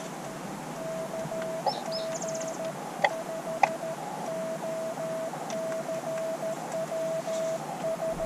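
Morse code (CW) from an Elecraft KX2 QRP transceiver: a steady tone keyed on and off in dots and dashes over radio band hiss. Two sharp clicks come about three seconds in, and a short bird call sounds a little before them.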